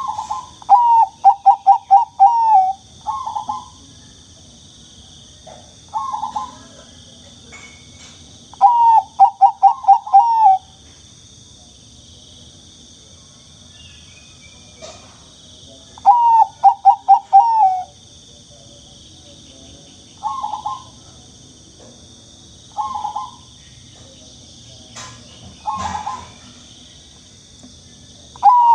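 Zebra dove (perkutut) cooing in its song phrases. Each phrase is a lead note followed by a quick run of five or six falling coos, about every seven or eight seconds, with single short coos in between.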